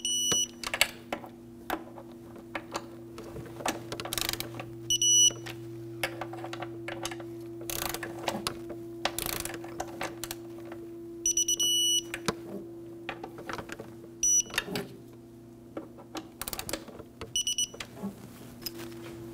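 Electronic digital torque wrench beeping in short high bursts, about five times, as each throttle body bolt reaches its set torque of 105 inch-pounds. Between the beeps come sharp clicks of the wrench ratcheting and the bolts being turned.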